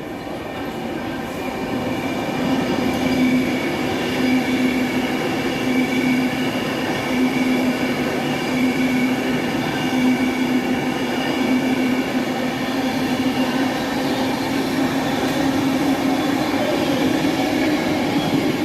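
A train running through the station, its sound growing over the first two seconds and then holding steady, with a steady low hum and a higher whine over the rail noise.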